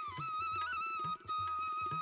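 Background instrumental music: a flute-like melody holding long notes, with short dips in pitch, over soft drum strokes.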